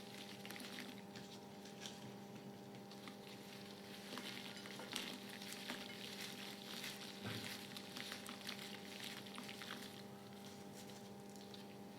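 Sporting chalk in water making a faint, irregular crackling and fizzing, like a soft sizzle, over a steady low hum.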